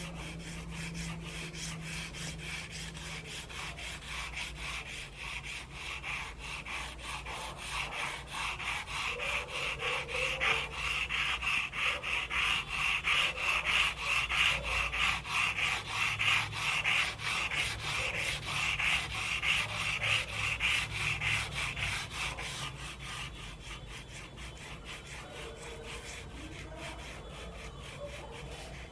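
Charcoal stick scratching and rubbing on paper in quick, repeated back-and-forth strokes, growing louder for a stretch in the middle and easing off again toward the end.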